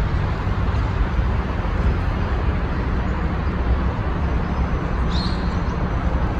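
Outdoor ambience: a steady rushing rumble, heaviest in the low end, with a brief high chirp about five seconds in.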